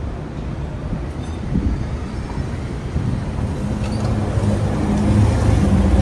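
Low street traffic rumble, then a Dodge Dakota pickup truck's engine humming and growing louder over the last couple of seconds as the truck pulls up close alongside.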